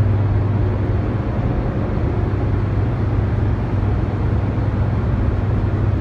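Hoover Dam's hydroelectric generator hall: a steady low hum over a constant wash of machine noise from the running generating units.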